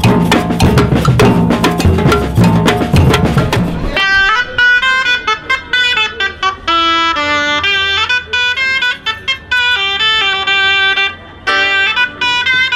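Samba-style street percussion band playing a fast, dense rhythm on surdo bass drums and other hand percussion. About four seconds in it gives way suddenly to a melodic tune of clean, separate notes.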